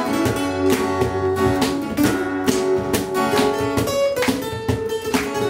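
Two acoustic guitars strumming and picking together in an instrumental passage, without singing, with a cajon keeping a low beat underneath.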